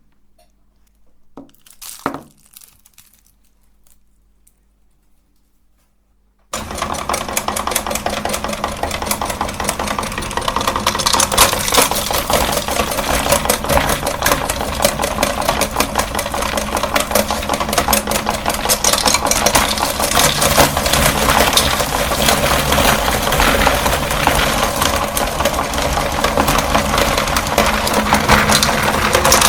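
A few light taps, then about six seconds in a meat grinder starts abruptly and runs, its motor humming steadily under a dense, loud crackling as it crunches hard candy.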